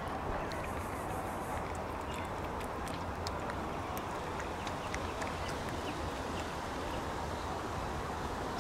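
A cat chewing and smacking on wet cat food close by: many small, irregular wet clicks over a steady background rush.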